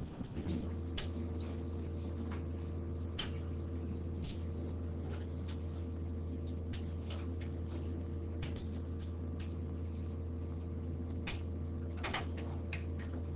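Classroom room tone: a steady low hum that comes on about half a second in, with scattered small clicks and taps throughout.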